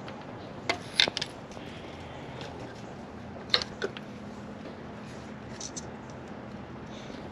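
Metal hand tools clicking and clinking while spark plugs are fitted: a short cluster of sharp clicks about a second in and another pair a little past the middle, over a steady hiss.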